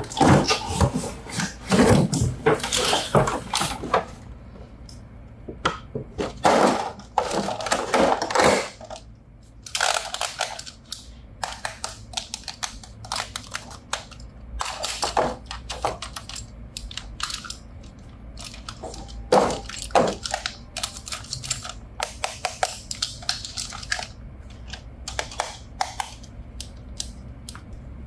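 Handling noises from unboxing toys: two stretches of rustling and crinkling of packaging in the first nine seconds, then scattered short clicks and taps of plastic parts.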